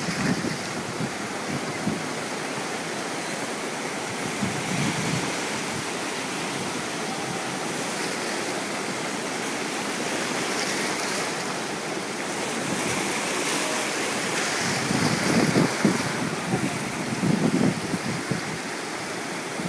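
Rough sea surf breaking and washing ashore in a strong southerly (jugo) wind, a steady wash of white water. Wind buffets the microphone now and then, most in the last few seconds.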